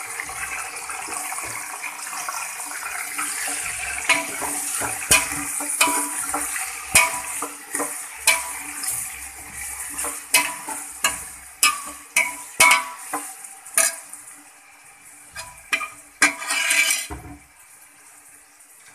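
Raw chicken pieces sizzling in hot oil with fried onions in a metal pot, stirred with a metal ladle that clinks and scrapes against the pot many times. The sizzle quietens near the end.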